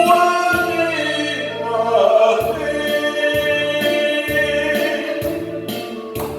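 Trot song with band accompaniment: long held sung or choir-like notes over a bass line that moves in steps.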